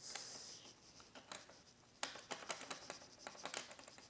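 Plastic Lego bricks clicking and rattling as they are handled and pressed, with a quick run of small clicks starting about two seconds in.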